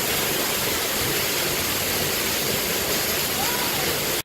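Steady, loud rush of water from Rifle Falls, a waterfall, cutting off abruptly at the very end.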